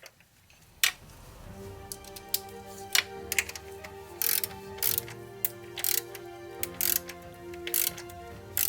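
Ratchet or torque wrench being worked on the cardan shaft support bearing bolts, giving short rasping ratchet strokes at irregular intervals, over background music that fades in.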